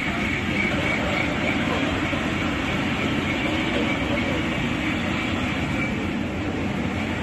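Mattress-making machinery running steadily, a dense even clatter with a faint high whine.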